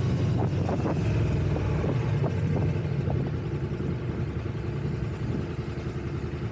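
Ducati motorcycle engine running at low road speed, easing off and getting quieter about halfway through as the bike slows.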